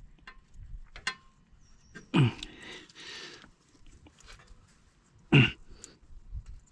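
Two short, low grunts of effort from a man, about two and five seconds in, each falling in pitch, between faint clicks and scrapes of a pick tool working at the ABS wire's retaining pin.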